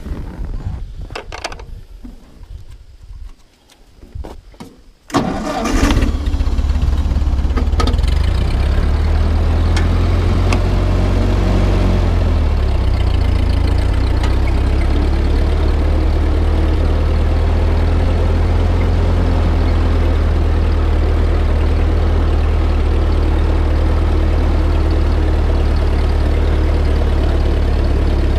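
1948 Ford 8N tractor's four-cylinder flathead engine is cranked and catches about five seconds in. It then runs steadily as the tractor drives off. Before it starts there are only a few light clicks and rustling.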